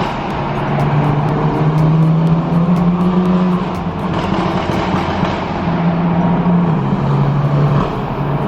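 BMW M4 engine running steadily while driving, its pitch climbing a little, dipping about halfway, then holding.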